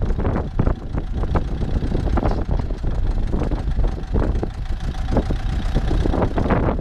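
Deutz D6806 tractor's air-cooled six-cylinder diesel engine running steadily as the tractor moves off, with irregular rattling and knocking over the engine note.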